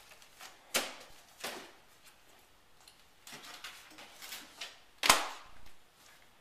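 Library books and plastic media cases being dropped and sorted into a plastic bin: several sharp clacks, the loudest about five seconds in.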